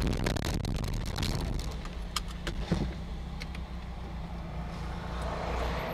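Engine and road noise of a moving car, heard from inside the cabin, a steady low hum. A few short sharp clicks or rattles come about two to three seconds in.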